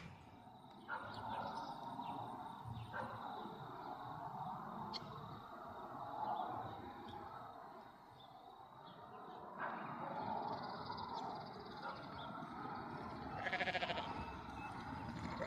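Sheep bleating, with one loud, quavering bleat near the end.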